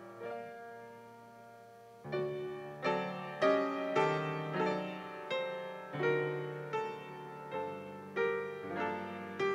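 Solo grand piano playing. A held chord dies away, and about two seconds in the playing picks up again, with chords and melody notes struck about twice a second.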